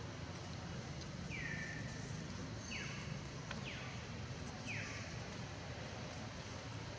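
Newborn macaque giving four short, high-pitched calls that each fall in pitch, the first about a second in and held longer than the rest: distress calls of an infant being grabbed and held by an adult female. A steady low rumble runs underneath.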